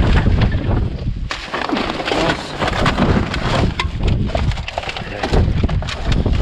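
Junk being rummaged and shifted in a dumpster: a busy run of knocks and clatter, with wind buffeting the microphone in a steady low rumble.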